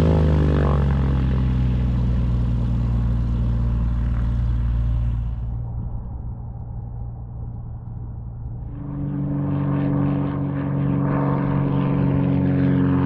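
Cessna 182P's piston engine and propeller running as the plane taxis away, the note dropping slightly at first and fading over the first several seconds. Shortly before the nine-second mark a louder, higher, steady propeller-engine note comes in suddenly.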